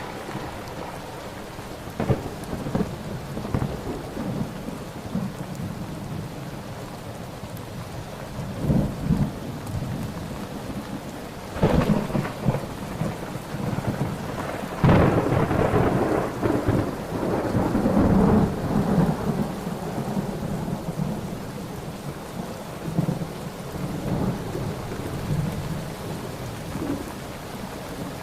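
Thunderstorm: steady rain with repeated rolls of thunder, a sharp clap about twelve seconds in and a long rumble starting about halfway through.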